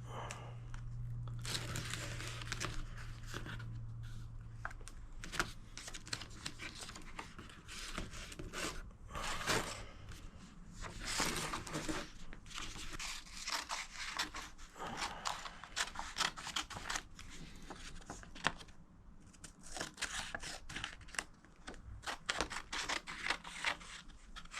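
Vinyl decal's backing paper being peeled back and a strip cut out of it: repeated stretches of tearing and crinkling, with many small clicks.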